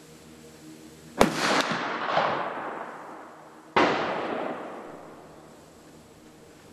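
Two rifle shots about two and a half seconds apart, each a sharp crack followed by a long echoing decay under the covered range.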